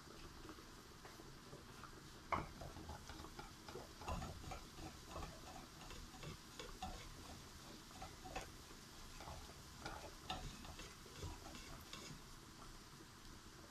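Frying pan clicking and knocking against the metal grate of a gas stove as it is shaken back and forth, a sharp knock just after two seconds in and irregular lighter clicks after it.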